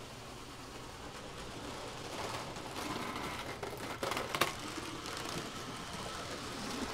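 Model trains running on the layout track: a faint mechanical rattle of wheels and motors that builds about two seconds in, with a few sharp clacks about four seconds in.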